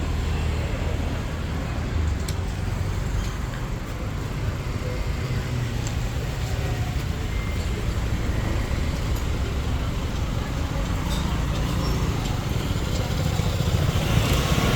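Steady low rumble of motor-vehicle engine and road noise, without breaks.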